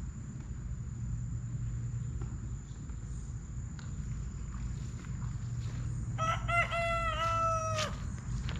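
A rooster crows once, about six seconds in: a few short notes, then a long held note that drops away at the end, all in under two seconds, over a steady low rumble.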